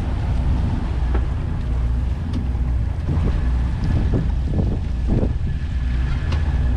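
Sea Ray Sundancer 370 cruiser's inboard engines running under way in shallow, muddy water, a steady low drone with wind buffeting the microphone.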